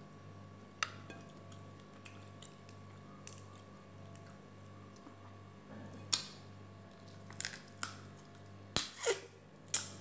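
A person eating prawns with rice by hand: quiet chewing with scattered sharp clicks and crackles, and a cluster of louder wet smacks near the end. A low steady hum runs underneath.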